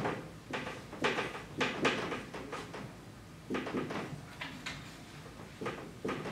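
Dry-erase marker writing on a whiteboard: a run of short, quick scratching strokes, bunched in groups with brief pauses between, as a word is written out letter by letter.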